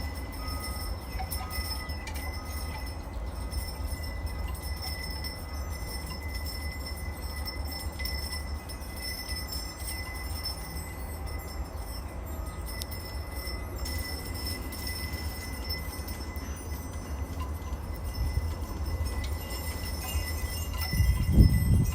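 Porch wind chimes ringing softly now and then over a steady low rumble of breeze on the microphone, with a louder gust of wind near the end.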